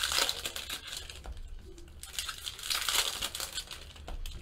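Foil wrappers of baseball card packs crinkling as the packs are torn open and handled by hand, in two spells: at the start and again about two and a half to three and a half seconds in.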